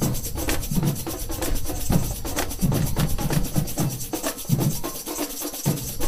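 Samba bateria drumming in the street: deep bass drum beats in a steady rhythm under a dense, fast rattle of higher drums and metal shakers. The bass drums drop out briefly about five seconds in.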